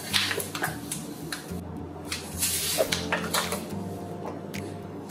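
A paper bag of granulated sugar rustling, with light knocks and clatter as a measuring cup scoops sugar out of it, and a brief burst of rustling about two and a half seconds in.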